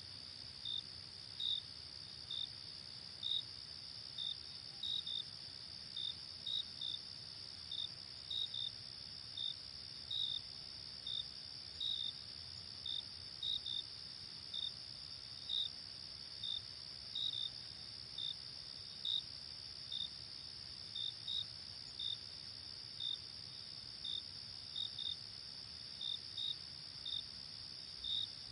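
Night insects: a steady high-pitched trill, with crickets chirping over it at irregular intervals, about one to two chirps a second.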